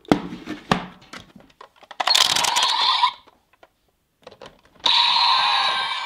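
Plastic clicks as a DX Rolling Vistamp toy stamp is handled against a Kamen Rider Revice DX transformation belt. About two seconds in comes a short, loud burst of electronic sound effect. About five seconds in the belt's electronic transformation standby sound starts and keeps playing.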